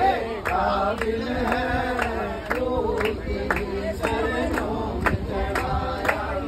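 A group of people singing a Hindi devotional bhajan together, with a sharp steady beat about twice a second.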